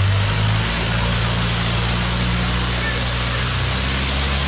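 Longtail boat engine running steadily under way, its note shifting slightly under a second in, over the rush of water and wind past the hull.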